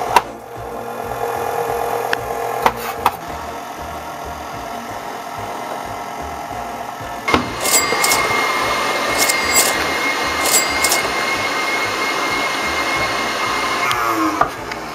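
Electric stand mixer motor switching on about seven seconds in and running steadily with a high whine, then stopping shortly before the end. Before it, a lower steady hum with a few sharp clicks.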